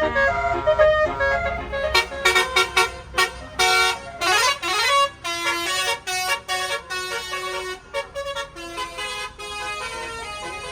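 A tour bus's basuri musical horn (telolet) playing a tune, with a quick run of short notes and a rising glide in the middle.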